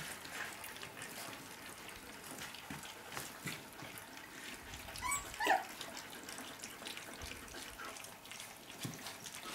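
A litter of 23-day-old puppies lapping and smacking at soft weaning food in a shared bowl: a steady run of small wet clicks and slurps. A short high puppy squeak comes about five seconds in.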